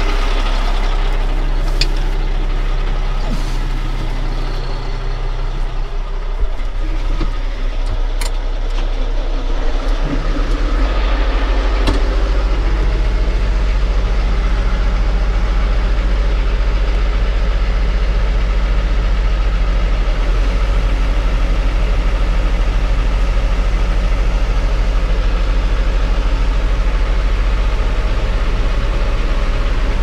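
New Holland T7030 tractor's diesel engine running steadily, getting louder and fuller about ten seconds in as it is brought up to working revs.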